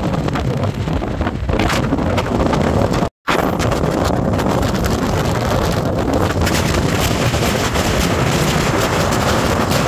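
Wind buffeting the microphone on a motorcycle at highway speed, a dense rushing noise with road and engine noise beneath it. The sound cuts out completely for a moment about three seconds in.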